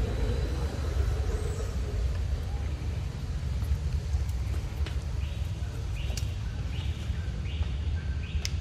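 Outdoor ambience: a steady low rumble, joined about five seconds in by a short chirping call repeating roughly one and a half times a second, with a couple of sharp clicks.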